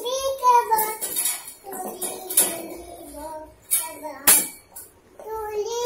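A high-pitched child's voice talking in a sing-song way, broken by a few sharp clicks.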